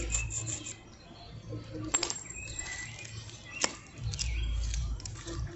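Plastic jelly fruit cup being handled and worked at to open it: small crackles, with two sharp clicks about two and three and a half seconds in. Low rumbles near the start and about four seconds in.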